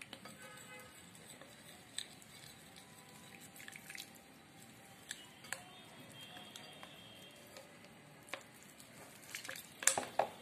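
Metal spoon stirring a wet flour batter in a ceramic bowl: soft squishing with scattered clinks and scrapes of the spoon against the bowl, a quick run of louder clinks near the end.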